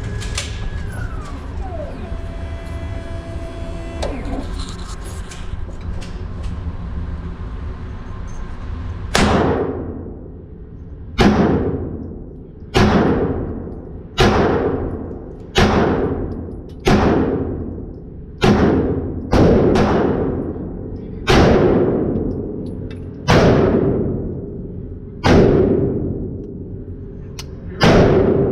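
Thirteen 9mm handgun shots fired at an uneven pace, one every one to two seconds, each ringing out with a long decaying echo. The shots start about a third of the way in, after a steady drone with held tones.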